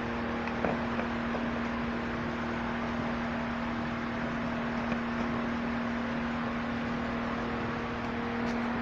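Brush cutter's small petrol engine idling with a steady, even hum.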